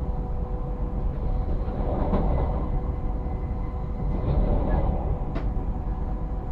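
Pendolino ED250 electric train running at reduced speed: a steady rail rumble with a constant electric whine over it, and one sharp click about five seconds in.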